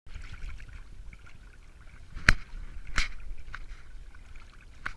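Water lapping and splashing against a kayak hull over a low rumble, with sharp knocks on the boat, the loudest two about two and three seconds in and weaker ones after.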